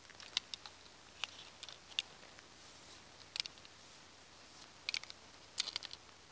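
Knife blade drawn across an Opinel natural sharpening stone used wet: short, light scrapes and clicks at irregular intervals, with a quick cluster near the end.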